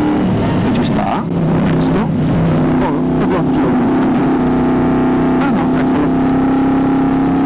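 Moto Guzzi V35's air-cooled V-twin engine running under way. Its note dips briefly about a second in, then holds steady.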